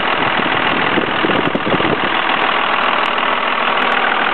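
Cummins 24-valve 5.9-litre inline-six turbo diesel idling steadily, heard close up at the open engine bay.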